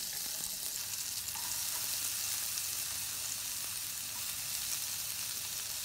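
Chopped onions, bell peppers and tomato sizzling in hot ghee in a nonstick pan: a steady hiss of frying.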